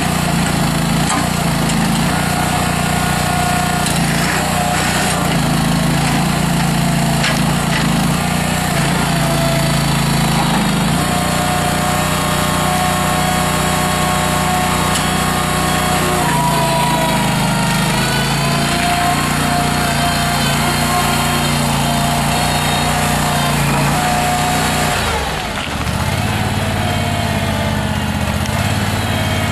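Honda GX620 V-twin gas engine of a Terrimite T5C backhoe loader running at working speed, with a whine that shifts in pitch as the hydraulic functions are worked. About 25 s in, the engine drops to a lower speed.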